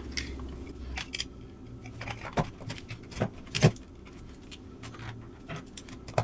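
Scattered small clicks and taps of screws, washers and a screwdriver being handled while the plastic power-supply case is screwed back together, the loudest a few in a row past the middle.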